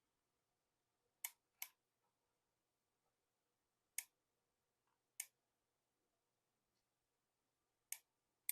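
Near silence broken by five short, sharp clicks, irregularly spaced: two close together about a second in, then single clicks a few seconds apart.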